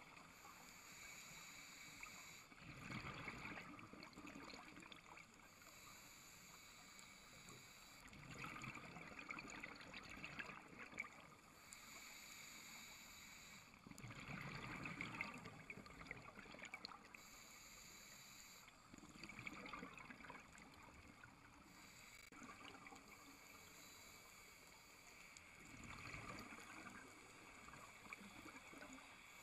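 Scuba diver breathing through a regulator, faint: a hiss on each inhalation alternating with a rumble of exhaled bubbles, five breaths about five to six seconds apart.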